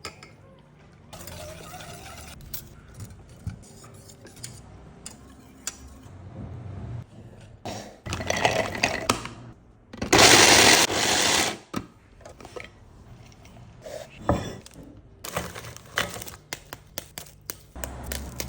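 Kitchen food-preparation sounds: dishes and utensils clinking and knocking, with a louder stretch of dense noise about ten seconds in that lasts a second or two.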